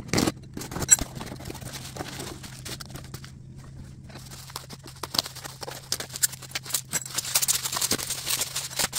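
Sped-up handling of a cardboard box and bubble wrap: rapid clicks, scrapes and rustles as the box is opened and a wrapped item unwrapped. The plastic crinkling gets busier about seven seconds in, over a steady low hum.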